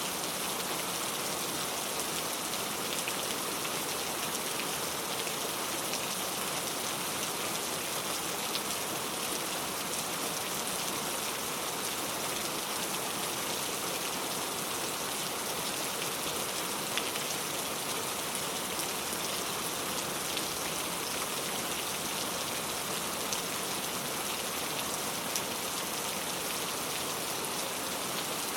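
Steady rain falling on leaves, an even hiss of many drops with faint individual drop ticks here and there.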